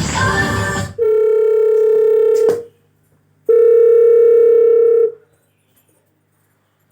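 Music cuts off about a second in, and two long, steady, telephone-like tones follow, each about a second and a half long with a short gap between them, played through the amplifier under test. Then near silence.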